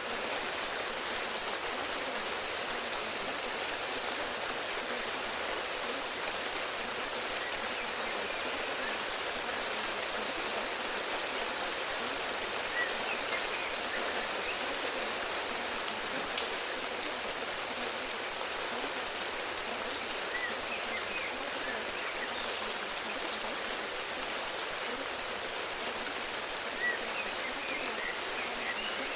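Steady rain, an even unbroken hiss of falling rain with the odd sharper drop. A few faint short high chirps come now and then.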